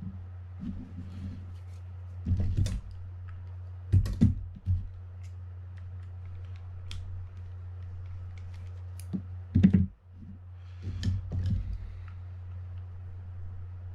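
Scattered clicks and short knocks of tools and small metal parts as a Shimano Baitrunner spinning reel is taken apart, its rotor being removed, over a steady low hum.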